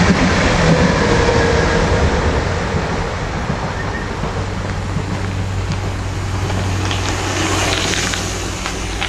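Electric passenger train passing close overhead on a concrete viaduct: a loud, steady rumble and rattle that sets in suddenly and slowly eases off.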